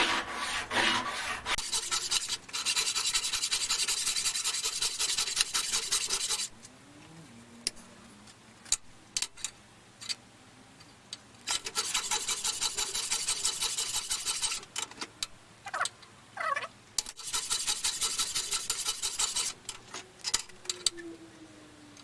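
Hand file rasping across a rough metal casting, cleaning it up. It comes in three spells of quick strokes, each a few seconds long, with quieter pauses and a few light knocks in between.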